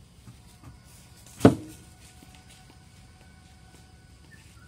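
One heavy chop of a large cleaver-like knife cutting through pineapple and striking the plastic-covered wooden table about a second and a half in, with a couple of light knocks before it.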